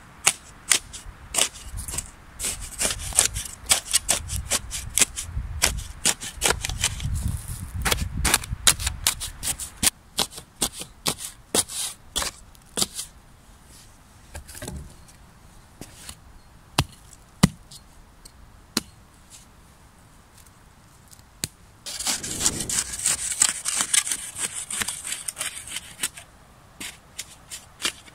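Steel spade chopping and levering into root-filled forest soil: a run of sharp cracks and snaps, dense for the first dozen seconds and sparser after. Near the end comes a few seconds of gritty scraping of soil.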